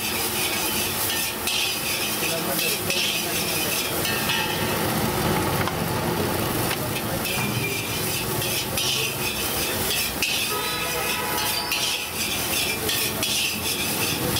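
Metal spatula scraping and tossing rice around a wok in repeated strokes, with the rice sizzling as it stir-fries.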